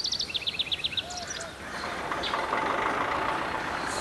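Birds chirping in quick runs of repeated notes for about the first second, then steady street-traffic noise swells in and holds, with a thin steady tone running through it.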